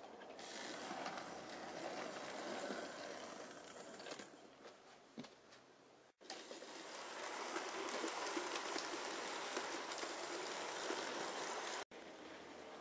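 OO-gauge model trains running on the layout's track: the whirr of the small electric locomotive motors and the rumble of the wheels on the rails. The sound breaks off for an instant twice as the shots change.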